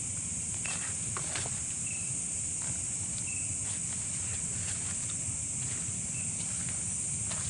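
Night insects trilling steadily at a high pitch, with a short, higher chirp recurring every second or so and scattered faint clicks.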